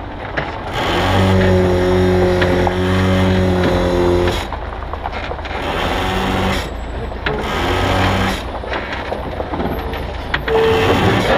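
Diesel engine of a heavily loaded log truck running under load, a steady drone that swells for a few seconds and then comes back in shorter surges.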